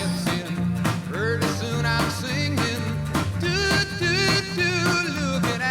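Background music: a song with a vocal melody over a steady bass line and a beat.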